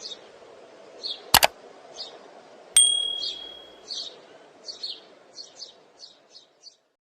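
Alexandrine parrot giving short chirping calls, one or two a second, thinning out and stopping near the end. A sharp double knock comes about a second and a half in, and a bright metallic ding rings for about a second just before three seconds in.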